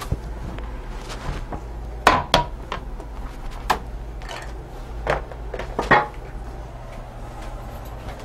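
About five sharp clicks and knocks of hard objects being handled, two close together about two seconds in and the last about six seconds in, over a low steady hum.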